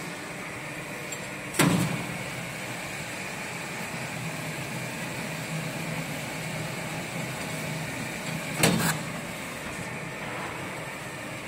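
Beer keg washing machine running: a steady machine hum, broken twice by brief loud blasts as the machine switches through its cleaning cycle, about a second and a half in and again near nine seconds.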